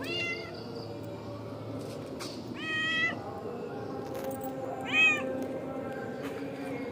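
Domestic cat meowing three times: a short falling meow at the start, a longer, drawn-out one about two and a half seconds in, and a short, loud one about five seconds in.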